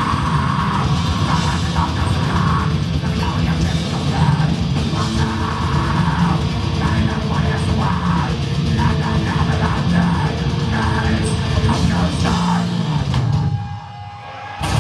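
Black metal band playing live, loud distorted guitars and drums heard from within the crowd, the sound dense and unbroken. About a second and a half before the end the music drops away sharply, then comes back loud just at the end.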